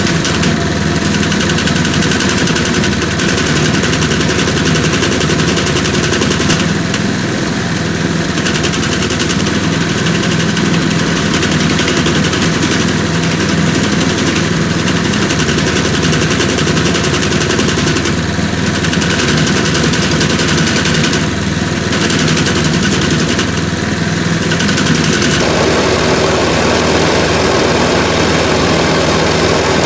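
The engine of a 1989 Amerind-Mackissic Mighty Mac 12P wood chipper running steadily. Its sound fills out and changes character about 25 seconds in.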